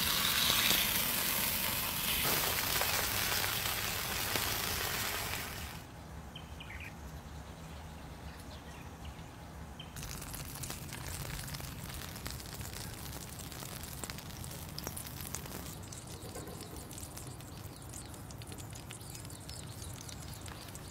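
Meat sizzling in a hot cast-iron pan, loud for the first six seconds, then quieter sizzling and crackling, with a few faint bird chirps.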